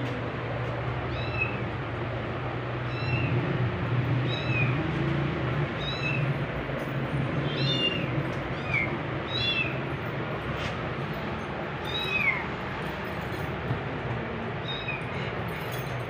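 Kitten mewing over and over in short, high-pitched calls, roughly one a second, over a steady low hum.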